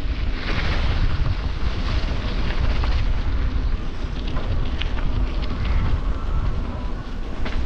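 Wind buffeting the microphone of a camera on a moving mountain bike, over the steady rumble of tyres rolling on a rough dirt road, with scattered sharp clicks and rattles.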